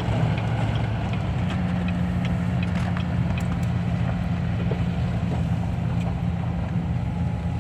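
Truck engine and road noise heard inside the cab while driving: a steady low drone whose engine note steps up slightly about a second and a half in.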